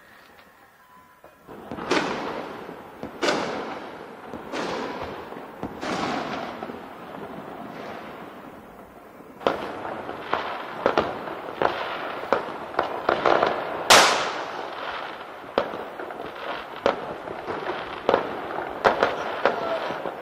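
Fireworks going off in the distance, each bang trailing off in a long echo. A few spaced bangs come in the first seconds, then from about halfway a dense run of bangs and crackles, the loudest about two-thirds through.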